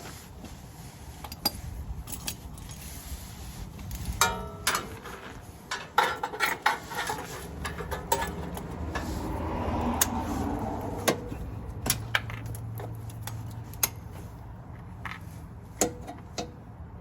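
Metal tools and parts being handled, with a string of sharp clinks, clanks and clicks at irregular moments; one clink about four seconds in rings briefly.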